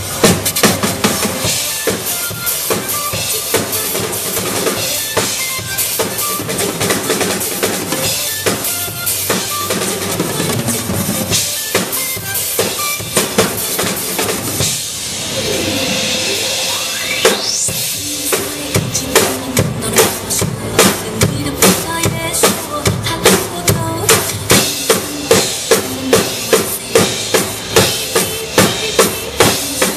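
Drum kit played live over recorded backing music, with busy snare, tom and cymbal hits. About halfway through a rising sweep comes in the music, then a steady heavy beat takes over, with strong kick and snare hits about twice a second.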